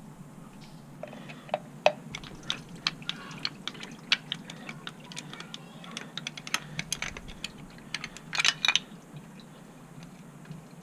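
Small metal clicks and taps of wrenches levering the water pump cover off a Honda CX500's aluminium engine case, irregular at first, with a quick cluster of clicks about eight seconds in.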